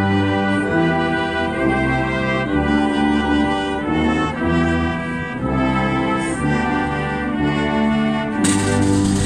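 Military brass band playing, with trombones prominent: full held chords that change every half second to a second. Near the end a rattling noise joins in.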